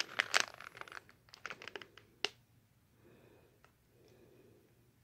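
Clear plastic packaging bag around an LED headlight bulb crinkling as it is handled, mostly in the first two seconds, with one sharp click a little after two seconds.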